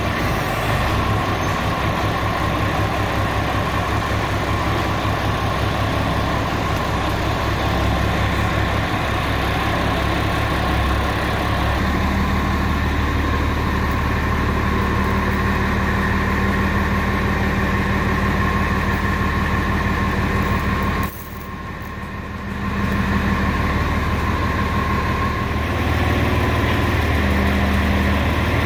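Tractor engine running steadily while its front-end loader takes the weight of the rear of another tractor by a chain on the wheel. The engine note grows heavier partway through, drops away briefly about two-thirds of the way in, then comes back.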